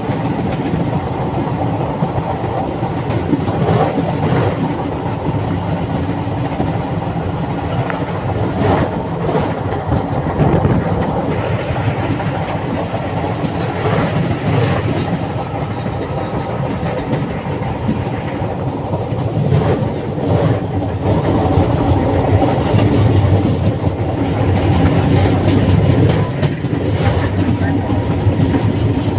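Train running along the track: a steady rumble with wheels clicking over rail joints, growing a little louder in the last few seconds.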